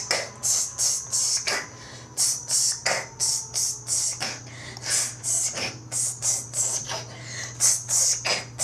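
Human beatboxing: a quick, steady run of hissy hi-hat 'ts' sounds, about three a second, broken by occasional deeper boom strokes, laying down the beat for a rap. A steady low electrical hum runs underneath.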